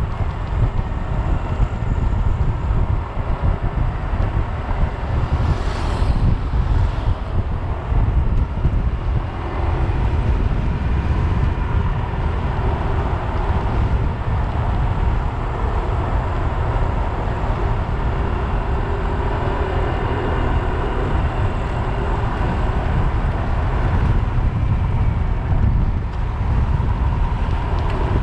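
Steady wind rushing over the microphone of a camera carried by a cyclist riding downhill at speed, heavy in the low end. A short hiss cuts through about six seconds in.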